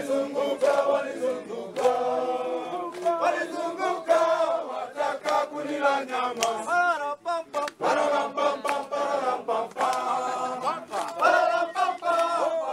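A group of men singing a Swahili song together, with sharp hand claps among the voices.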